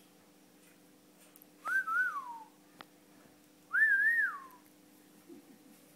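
Two clear whistled phrases about two seconds apart, each a double-humped note that then slides down in pitch, with a brief click between them.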